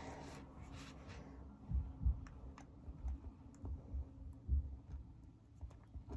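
A pen writing on paper, with faint scratchy clicks and a scattering of soft, low thumps against the writing surface.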